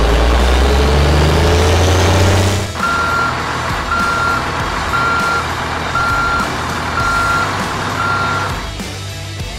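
Electronic sound effects from a Cat Power Haulers toy wheel loader: a recorded diesel engine revving up for a few seconds, then six reversing beeps about one a second.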